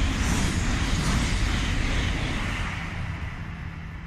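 E2 series Shinkansen passing at high speed with a loud rushing noise that fades steadily as the train draws away.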